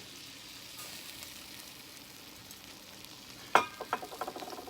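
Onion and garlic sizzling steadily in a hot pan. About three and a half seconds in comes a sharp clink with a short ring, the loudest moment, followed by a few lighter clinks.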